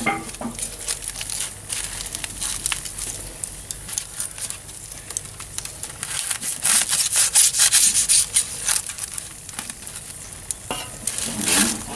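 A knife and tongs working foil-wrapped baked potatoes on a charcoal grill grate: aluminium foil crinkling and the blade scraping through. Dense crackling comes in two spells, one near the start and one just past the middle.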